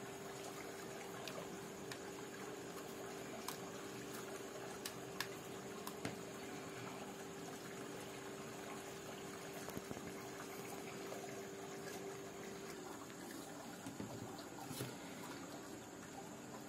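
Faint, steady hiss of room noise with a low hum that stops about three-quarters of the way through and a constant high whine, broken by a few small, sharp clicks.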